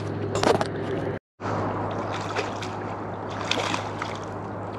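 Steady low hum in a fishing boat with scattered clicks and handling rustles over it; the sound drops out completely for a moment about a second in.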